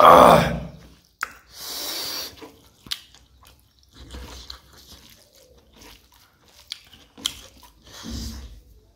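Close-up hand-eating sounds: fingers squishing rice into spicy mutton-innard gravy on the plate, with wet chewing and mouth clicks. The loudest sound comes in the first second, with further wet bursts about two seconds in and near the end.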